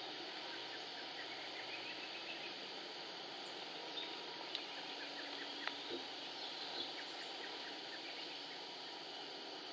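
Faint, scattered bird chirps over a steady hiss of rural background noise, with a few soft ticks.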